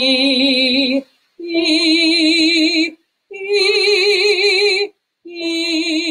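A woman's trained singing voice demonstrating a vocal exercise: separate held notes with vibrato, each about a second and a half long with a clean gap between, stepping up in pitch over three notes and then back down. Each note is started and stopped with the breath alone, a drill in breath-controlled onsets and releases.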